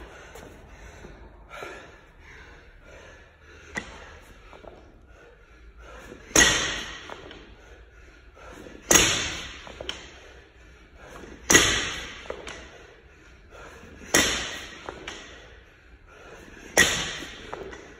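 A barbell loaded with rubber bumper plates is dropped from overhead onto the gym floor five times, about every two and a half seconds, starting about six seconds in, once at the end of each ground-to-overhead rep. Each drop is a sharp crash that rings on briefly.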